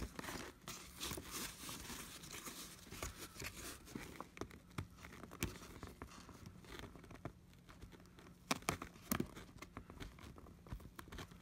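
Faint rustling of the wagon's fabric cover and scattered small clicks as fingers work to fit a zipper's pin into its slider, trying to start the zip at the bottom.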